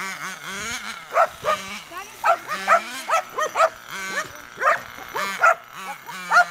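Dogs barking repeatedly, about eight short sharp barks, as they chase a radio-controlled buggy. Underneath runs a low tone that rises and falls in pitch.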